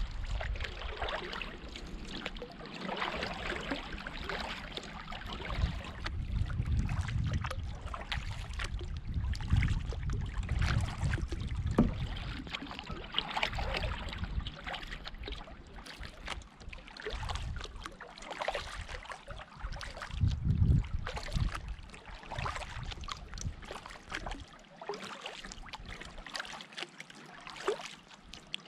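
Canoe paddling: the paddle dipping and pulling through the water in repeated strokes, with water trickling and gurgling off the blade and along the hull.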